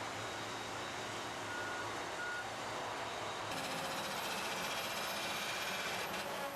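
A heavy forestry machine running steadily, with two short high beeps of a warning alarm about two seconds in.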